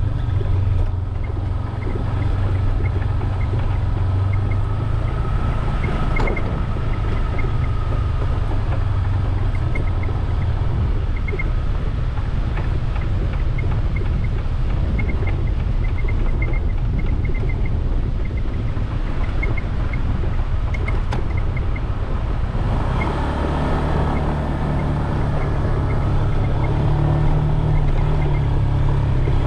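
Small motorbike engine running steadily, mixed with wind rumble on the microphone as it rides. About three-quarters of the way through, the engine note rises and gets stronger.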